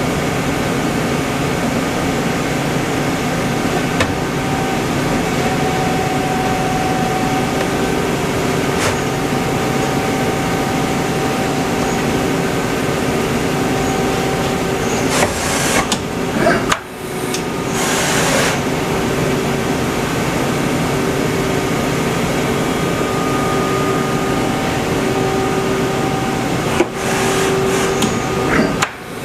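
Mazak Quick Turn Nexus 400 II CNC turning center running: a steady machine hum with several whining tones, one of which comes in about eight seconds in. Twice, in the middle and near the end, a brief hissing burst is followed by a sudden drop in level.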